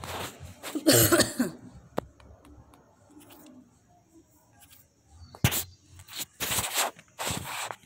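Handling noise close to a phone's microphone: irregular short rustling bursts and a few sharp clicks, the loudest burst about a second in.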